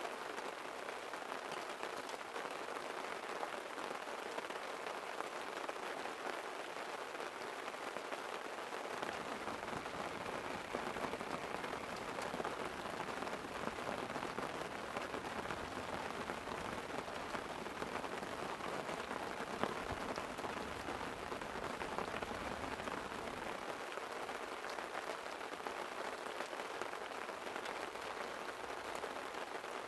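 Light rain falling steadily on a tent. A low rumble of rolling thunder comes in about nine seconds in and dies away about fifteen seconds later.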